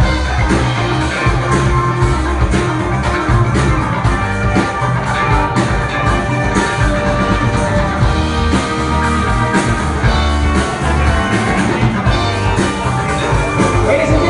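Live rock band playing loudly: electric guitar over a steady drum beat with a heavy low end.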